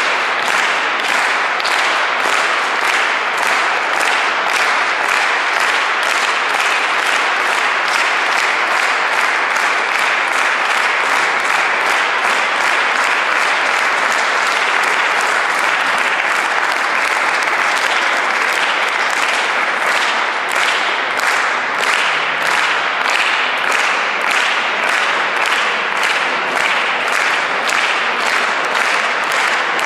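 Audience applauding steadily, the clapping falling into a regular rhythmic beat in unison.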